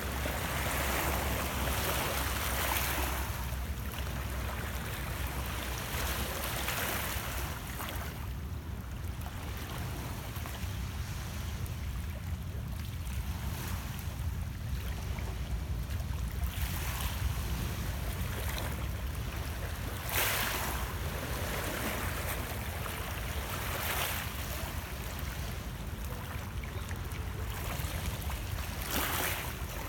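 Small lake waves lapping and splashing against shoreline rocks, swelling and fading every few seconds, over a steady low rumble.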